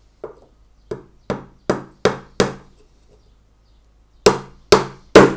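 Small cross-pein hammer driving a gimp pin into a wooden beehive brood frame: a light tap, five quick strikes, a pause, then three harder strikes near the end.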